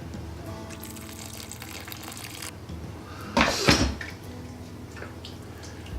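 Water poured into a pot of thick simmering chili, a hissing splash for about two seconds, followed a second later by a loud short clank of cookware.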